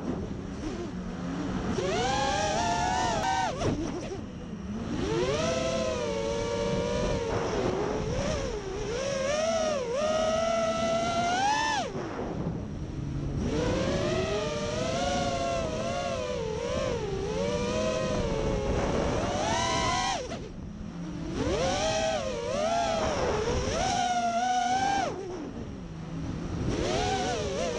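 FPV quadcopter's brushless motors and propellers whining, the pitch rising and falling constantly with the throttle. The whine drops away briefly about four times.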